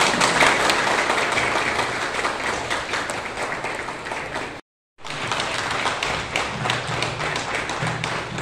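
A group of people applauding, a dense patter of hand claps. It drops out for a moment about four and a half seconds in, then starts again.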